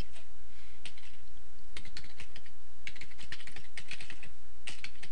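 Computer keyboard typing: irregular runs of quick keystrokes as a web address is typed, over a steady low hum.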